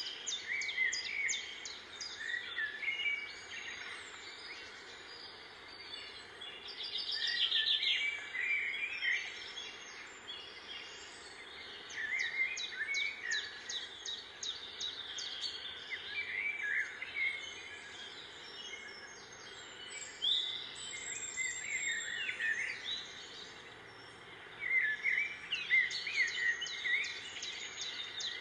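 Small birds chirping and twittering, with quick trilled phrases in clusters every few seconds over a steady outdoor background noise.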